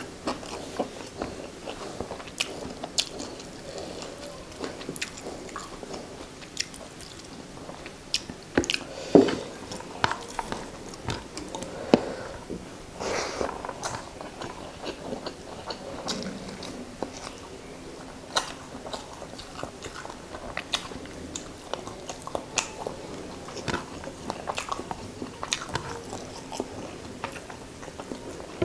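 Close-up eating sounds of rice and fish curry eaten by hand: steady chewing with many short, wet mouth smacks and clicks. A few louder smacks come about a third of the way in.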